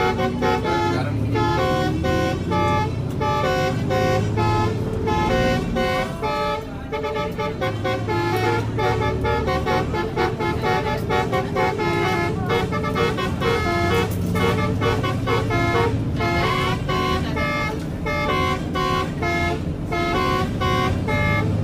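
Basuri telolet bus horn, a multi-trumpet musical air horn, playing a fast tune of short notes one after another.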